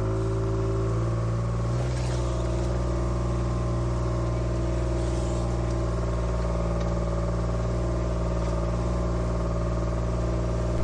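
Farm vehicle's engine running steadily under way, its note shifting slightly about two seconds in.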